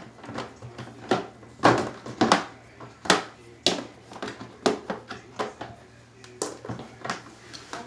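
Irregular knocks and clicks as the opened casing and parts of a portable washer and spinner dryer are handled, a dozen or so sharp taps, the loudest clustered about two seconds in.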